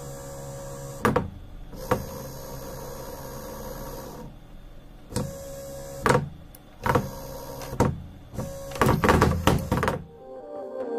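Small brushed DC motor with a worm gear on its shaft, driven by a homemade servo-board ESC from a radio-control transmitter, whirring in several short runs of one to two seconds, each starting and stopping with a click.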